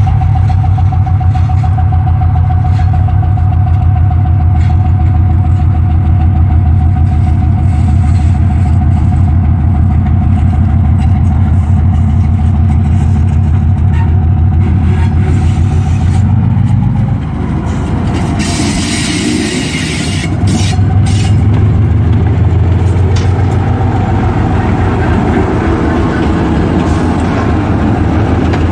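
Diesel engines of a 2TE10L two-section diesel locomotive running under load with a heavy, pulsing rumble as it approaches and passes close by. About 17 seconds in the engine note drops and changes, a hiss lasts about two seconds, then the engine picks up again at full strength.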